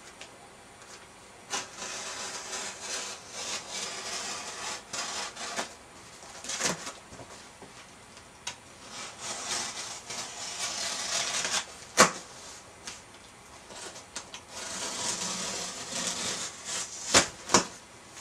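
Knife slicing through the packing tape on a large cardboard box, heard as several scratchy strokes of a second or two each, with one sharp knock about two-thirds of the way through and two more sharp clicks near the end, as the cardboard flaps are handled.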